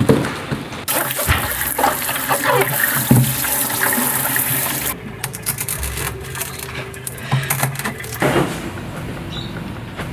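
Water running and splashing as leafy greens are rinsed for about four seconds. Then comes a run of sharp taps and knocks as a metal tool is driven into a green coconut.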